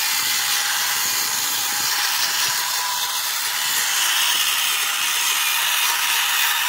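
Small electric motor of a homemade cardboard toy tractor running steadily, a high whirring hiss, as the wired toy rolls over dry dirt.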